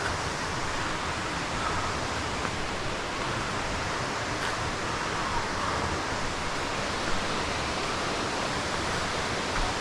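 Steady rush of falling water from a waterfall, an even hiss with no distinct events.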